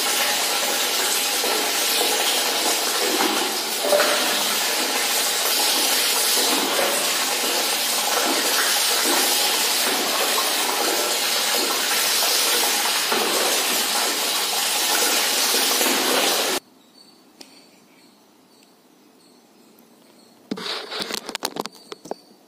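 Water pouring steadily from a bowl over a cat being bathed, a constant loud splashing hiss that cuts off abruptly about three-quarters of the way through. After that it is quiet, with a brief burst of rustling near the end as the cat is wrapped in a towel.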